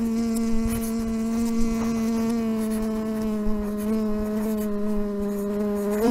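Bumblebee buzzing sound effect: one steady drone holding its pitch, wavering slightly about two-thirds of the way through.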